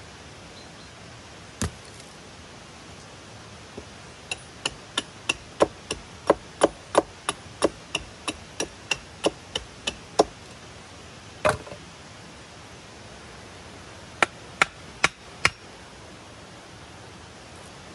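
A hatchet striking wood, a faint metallic ring in each blow. After a single knock there is a steady run of sharp strikes, about three a second for some six seconds, then one heavier blow and a quick run of four more.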